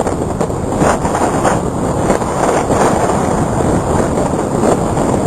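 Hurricane wind blowing hard and steadily, a loud, unbroken rushing noise over the microphone.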